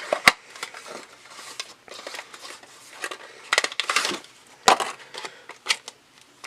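Cardboard and plastic packaging being handled and pulled apart: a series of sharp clicks and taps, with a longer crackling, crinkling stretch a little past halfway.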